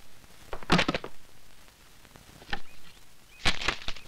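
Short sharp taps and knocks from footsteps and from a book being handled on a wooden desk: a quick cluster about a second in, a single knock midway, and another quick run of taps near the end as the register is opened and its pages turned.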